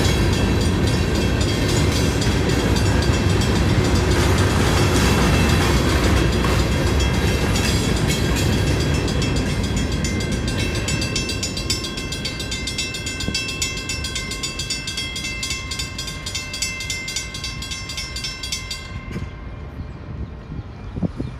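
Freight train cars rolling through a grade crossing, their wheels rumbling and clattering, fading away as the end of the train passes about halfway through. A railroad crossing warning bell rings steadily in an even rhythm and stops near the end as the gates begin to rise.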